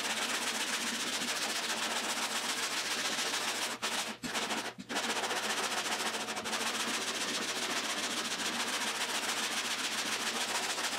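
Hand sanding of body filler on a steel car door with a sandpaper-faced sanding block: a fast, steady rasping of back-and-forth strokes. It breaks off a few times for a moment about four to five seconds in.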